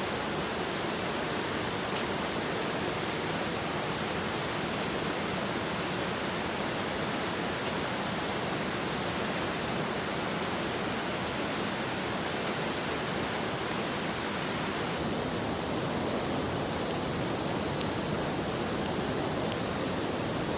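Steady rushing of water, a continuous even noise. Its tone brightens slightly about fifteen seconds in.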